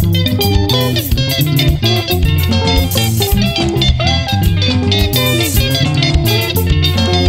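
Band music: an electric guitar picks quick melodic lines over a bass guitar and a steady drum beat.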